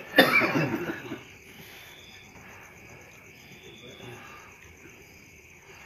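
A man's voice, loud, for about the first second, then fast, steady, high-pitched insect chirping in the background.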